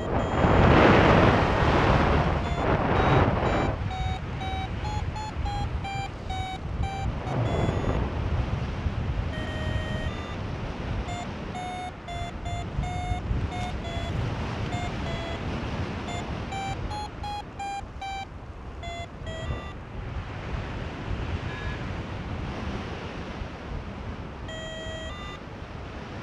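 Paragliding variometer beeping in short tones that step up and down in pitch, the sound it makes while climbing in rising air. Under it, wind noise from the airflow on the microphone, loudest in gusts in the first few seconds.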